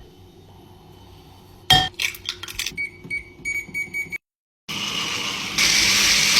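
Clinking of kitchenware with a sharp click and a few short, pitched beeps. After a brief break a kitchen appliance starts a steady whirring run, getting louder about a second later.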